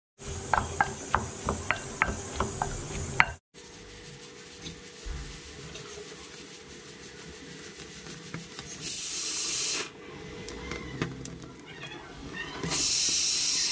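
A wooden spoon stirring food in a glass bowl, tapping and clicking against the glass about four times a second. Then, after a break, stink bean pods roasting over a gas burner's flame with a steady hiss, broken twice by loud bursts of hiss that start and stop abruptly.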